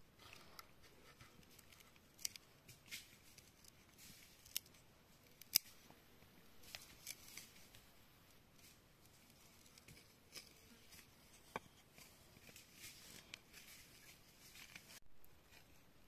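Small knife cutting and scraping into a green bamboo tube: faint scraping with scattered sharp clicks, the sharpest about five and a half seconds in.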